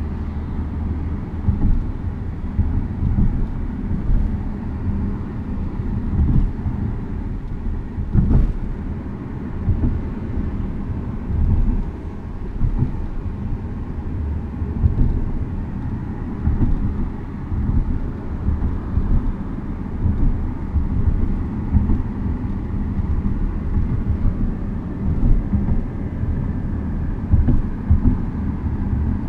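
Steady low road and drivetrain rumble inside a 2015 Audi SQ5's cabin, with faint, irregular clicks and ticks: a rattle that seems to come from the driver's side door and that repeated dealer repairs have not cured.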